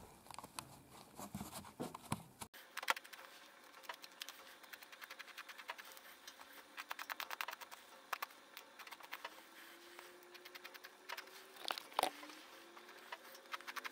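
Faint, irregular clicking and scratching of a small knife blade cutting the thin skin away from the back of an animal's ear cartilage, with gloved fingers handling the hide.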